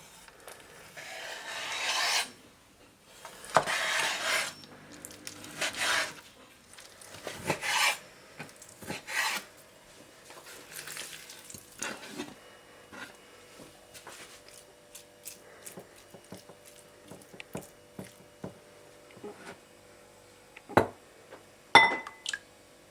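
Kitchen knife working on a wooden cutting board: several long rasping strokes, then lighter scattered taps and two sharp knocks near the end.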